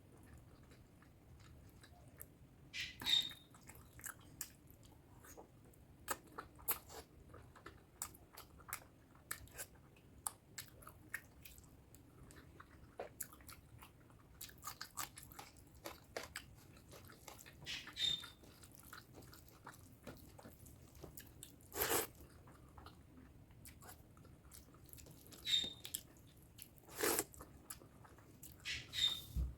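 Close-miked chewing and biting of spicy pork curry and rice, a steady run of small wet mouth clicks with a few louder bites and smacks spread through.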